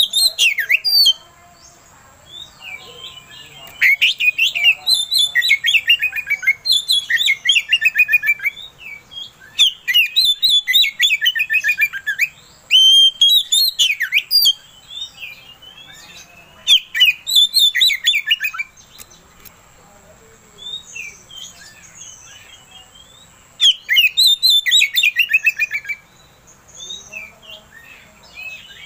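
Oriental magpie-robin singing its excited full song: loud phrases of rapid, repeated whistled notes and trills, each a few seconds long, with short pauses between them.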